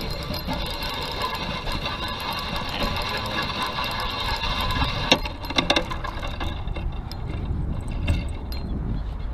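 Spinning reel being cranked on a lure retrieve, a steady whirring of its gears, which stops about five seconds in with a few sharp clicks. After that, a low rumble of wind on the microphone.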